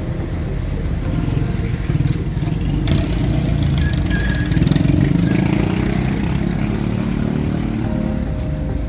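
Honda CB650R inline-four motorcycle riding in traffic, its engine rising in pitch and level near the middle as it accelerates, over a steady low rumble of road and traffic noise.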